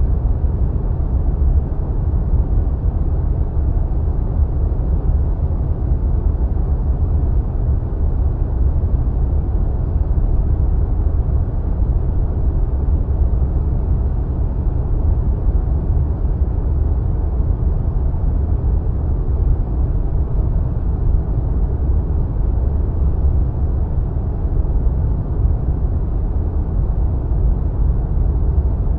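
Steady, deep wind noise, like air rushing past in flight, with most of its weight low down and no gusts, breaks or changes.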